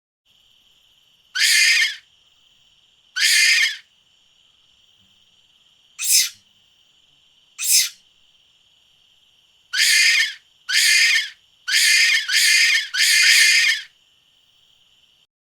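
An animal's harsh, hissing screech calls, nine in all: two spaced calls, two short sharp ones, then five in quick succession toward the end. A faint steady high-pitched tone runs beneath them.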